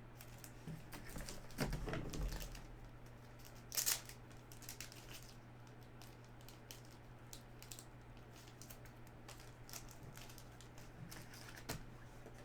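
Trading cards and plastic card holders being handled: scattered light clicks and rustles, with a louder rustle and bump about two seconds in and a sharp crinkle about four seconds in.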